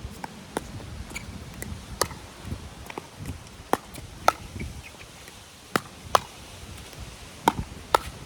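About eight short, sharp knocks at irregular intervals, some with a brief ring, over a steady background hiss.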